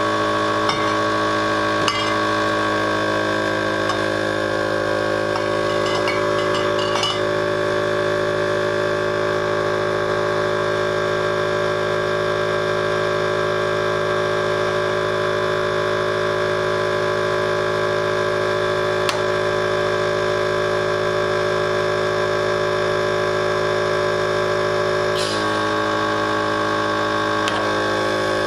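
The electric vacuum pump of an All In One Wine Pump runs with a steady, many-toned hum, pulling vacuum that draws wine up the tubing into the bottles. There are a few light clicks and clinks of glass, and the pump cuts off suddenly at the end.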